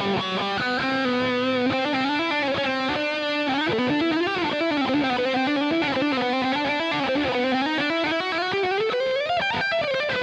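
Electric guitar through a distorted Scuffham S-Gear amp-simulator preset, playing a sustained lead melody with string bends and vibrato, and a long upward bend near the end.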